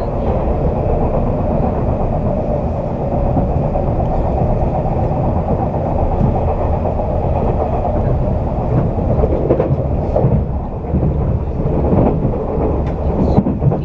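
189-series electric train running at speed: a steady low rumble with a few faint rail-joint clicks late on.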